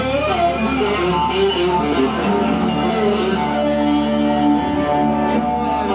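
Electric guitar played loosely through an amplifier: single notes with bends and glides, and some notes held for a second or more, over a steady amp hum.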